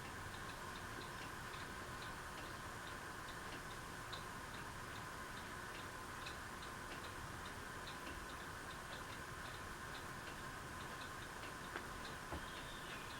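Rusty six-blade Quorum hugger ceiling fan running on low speed: a faint, steady motor hum with light, quick ticking a few times a second.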